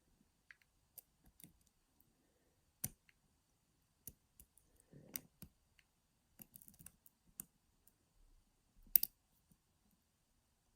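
Irregular faint clicks and ticks of a homemade underwire pick and tension tool working the pins inside a Carl F euro cylinder lock, with two sharper clicks, about 3 s and 9 s in, among them. The pins are being set and lost again.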